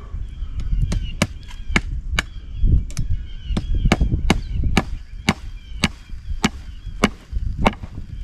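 Hammer driving fence staples into a wooden fence post to hold a tight-stretched barbed wire, with steady sharp blows about two a second. Small birds chirp faintly behind.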